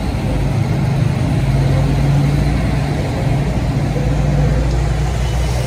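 Large farm tractors driving past in a convoy, their diesel engines giving a steady low engine note.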